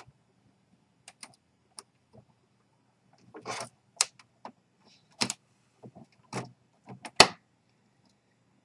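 Handling sounds of fingers working double-sided foam tape and plastic ink-supply tubes against a printer's plastic frame: a few faint ticks, a short rustle about three and a half seconds in, then sharp clicks and taps about once a second, the loudest near the end.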